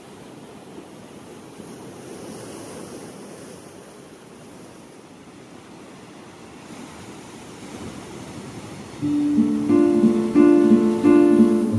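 Steady rush of ocean surf and wind. About nine seconds in, acoustic guitar music enters loudly with picked notes.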